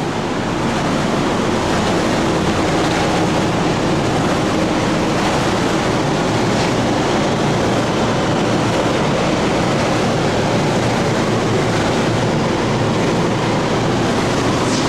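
Steady, loud rushing of ventilation fans with a faint low hum, unchanging throughout.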